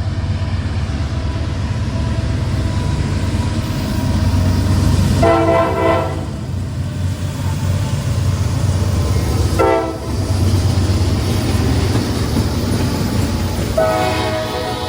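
Diesel locomotive rumbling past while sounding its multi-note air horn: a longer blast about five seconds in, a short one near ten seconds, and another starting near the end.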